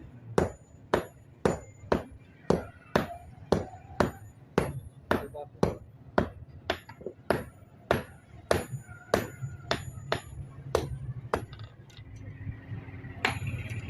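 Blacksmith's hand hammer striking iron on an anvil, forging a cobbler's tool: steady blows about two a second, each with a high metallic ring. The hammering stops about three-quarters of the way through, and one more blow lands near the end.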